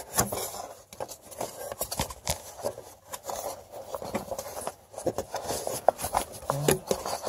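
A rubber fan belt being worked by hand around the fan blades of a Kioti CK3510 tractor as the fan is turned, making irregular scraping, rubbing and clicking.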